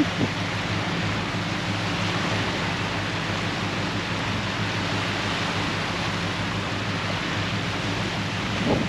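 Steady rushing noise of rain and wind on the microphone, with a faint low hum underneath.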